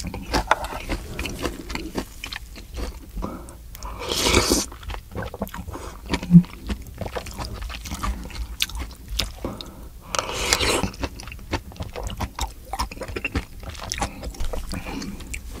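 Close-miked eating sounds: wet chewing and mouth clicks throughout, with two short, louder hissy sounds about four and ten seconds in and one sharp clink about six seconds in.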